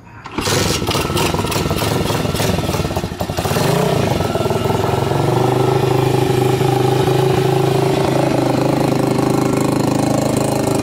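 Tao Tao DBX1 140cc pit bike's single-cylinder four-stroke engine kick-started: it catches about half a second in and runs rough and uneven for a few seconds. A brief rev follows near four seconds in, then it settles into a steady idle.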